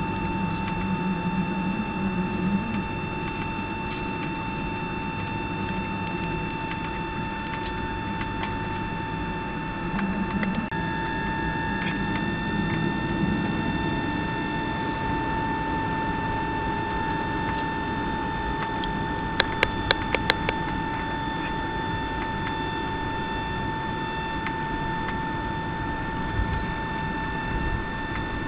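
Cabin noise of a Boeing 757-200 taxiing: a steady low rumble with a steady high-pitched whine over it. About twenty seconds in, a quick run of five sharp clicks.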